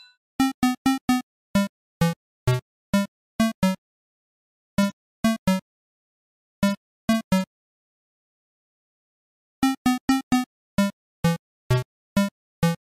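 Retro video-game dialogue text blips: short pitched beeps that sound as a character's speech text prints out, in irregular runs of about two to four a second. There is a pause of about two seconds in the middle.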